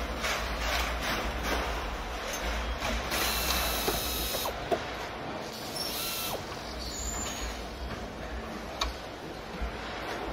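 Car assembly-line noise: a steady low hum with scattered clicks and knocks from tools and parts, and two bursts of hiss, the first about three seconds in and lasting over a second, the second shorter, around six seconds.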